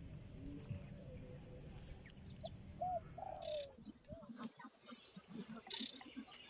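Faint outdoor bird calls: a few short, arched notes in the middle, then a fast, even row of high ticks through the second half.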